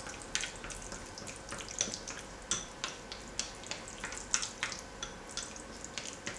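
Spatula slowly stirring vegetable oil into a thick gel base in a glass bowl: short sticky clicks, uneven, several a second.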